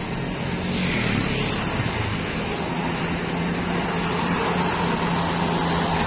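Tour coach driving past with its diesel engine running steadily under road noise; no horn sounds.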